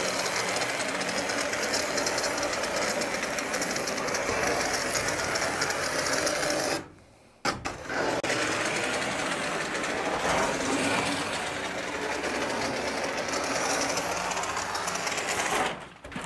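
Spray foam gun dispensing a bead of foam adhesive onto an insulated concrete deck form, a steady hiss that breaks off briefly about seven seconds in.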